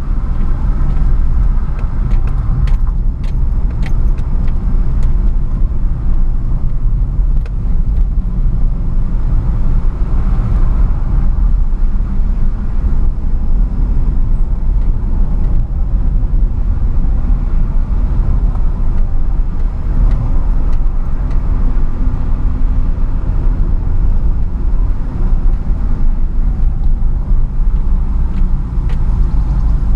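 Car driving, heard from inside the cabin: a steady low rumble of engine and tyres on the road, with a few light rattles or ticks about two to five seconds in and again near the end.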